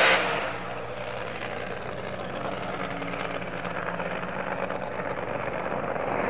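Funny car's supercharged V8 running through a burnout, its rear tyres spinning in smoke, heard from the grandstand. The sound starts abruptly and loud, settles into a steady engine note, and grows louder near the end.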